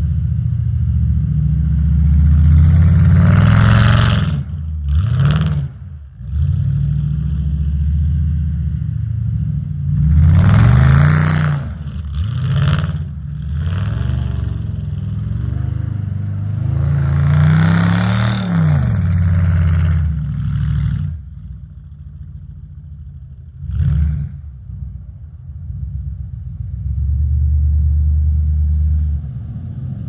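Jeep Grand Cherokee's 5.7-litre Hemi V8 revving up and falling back again and again as it spins donuts in snow with traction control off, with a rush of noise at each loudest rev. It runs quieter for a few seconds past the middle, then settles into a steady lower run near the end.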